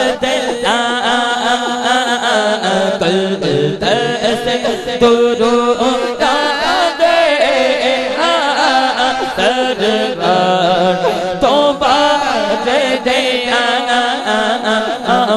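Male voice singing a Punjabi naat in long, bending melismatic lines over a steady low hum of backing voices.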